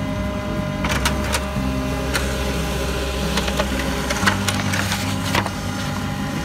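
Background music with a deep bass line that changes note about every second, and a few sharp clicks.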